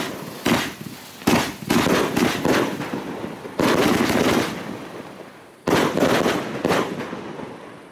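Luypaers Asiatic Cheetah 100-shot fireworks cake firing its final shots: sharp bangs, some in quick runs of two or three, each trailing off as the burst dies away. The last reports come about seven seconds in, ending the cake.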